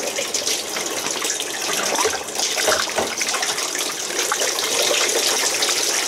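Water from a hose running steadily through the cooling passages of a 1979 Evinrude 55 hp outboard powerhead during a flush, with a few small splashes about two and three seconds in.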